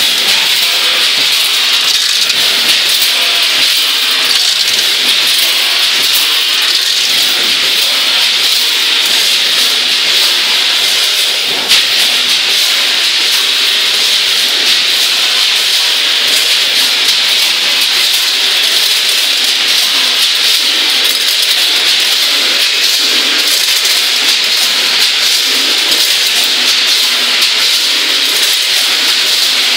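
Steady hissing machinery noise of a running packing line: multihead weigher, bucket conveyor and form-fill-seal bagger. A single sharp click comes about twelve seconds in.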